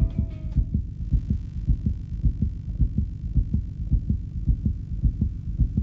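A steady heartbeat thumping quickly and evenly, a few beats a second, as a sound effect. A fading music note clears in the first second.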